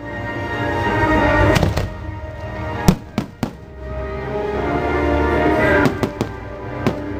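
Orchestral fireworks-show music playing, with aerial firework shells bursting in sharp bangs through it: one about a second and a half in, a quick cluster of three around the middle (the first the loudest), and a few more near the end.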